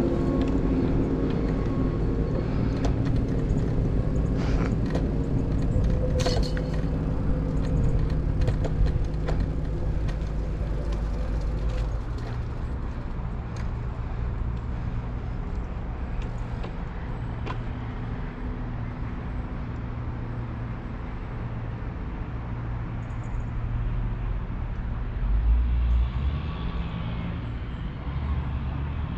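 Wind buffeting a helmet-mounted action camera's microphone over the rolling noise of a bicycle on the trail, with scattered clicks and rattles early on. A steady hum runs under the first dozen seconds and then fades, and a stronger gust or rumble swells near the end.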